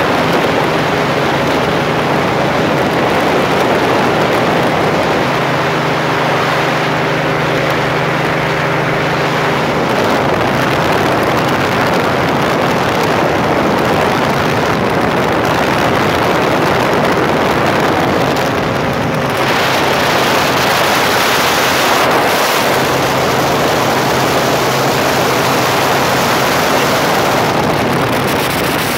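Open-cockpit light aircraft in flight: a steady engine drone under heavy rushing wind on the microphone. The wind hiss gets brighter and louder from about two-thirds of the way in.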